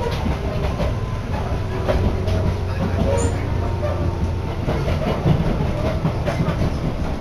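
Tobu Nikko Line electric train running, heard from inside the passenger car: a steady low rumble, with the wheels clacking over rail joints now and then.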